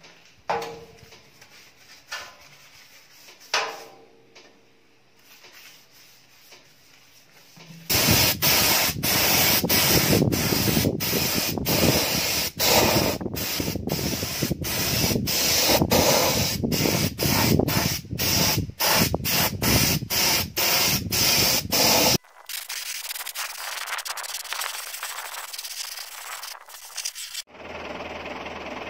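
Gravity-feed paint spray gun spraying in many short passes, its loud hiss broken by brief gaps each time the trigger is let go, with a lower rumble beneath it; then a thinner, higher hiss for a few seconds. Before the spraying, a few faint knocks as a brush works over the sheet steel, and near the end a tractor engine running.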